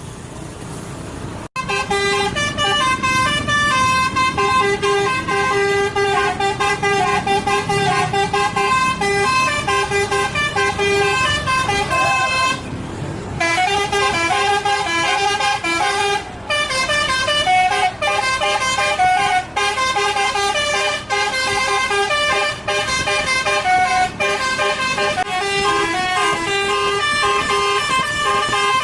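Indonesian 'telolet' multi-tone bus horns playing a long, unbroken run of quick stepping notes like a tune. It starts suddenly about a second and a half in, stops briefly near the halfway mark, and drops out for a moment a few times after.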